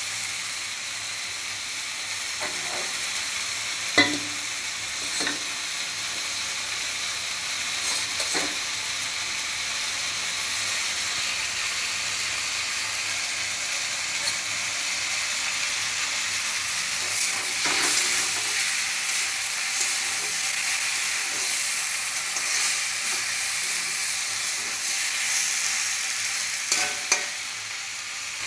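Young jackfruit and potato pieces sizzling in oil in a kadai, with a steady hiss, while a spatula stirs them and clinks or scrapes against the pan now and then, sharpest about four seconds in and again near the end.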